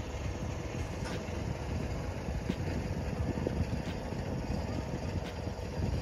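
Steady low rumbling noise outdoors, with a few faint knocks scattered through it.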